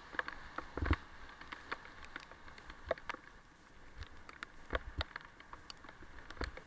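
Raindrops tapping irregularly on the camera during a bicycle ride in the rain, over a steady faint hiss, with a few low thumps from bumps in the road about a second in and again near the end.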